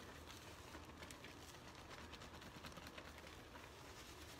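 Near silence: faint room tone with a few tiny ticks.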